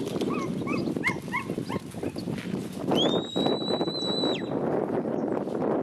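A long, steady, high whistle blown as a command to a herding dog working cattle, starting about three seconds in and held for over a second before stopping sharply. Before it comes a quick run of short high chirps, with a constant low rustle of cattle moving close by underneath.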